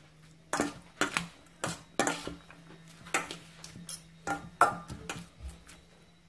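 Kitchen utensils clattering against a dish, about eight separate knocks with a short ring, spread over several seconds. A faint steady low hum lies underneath.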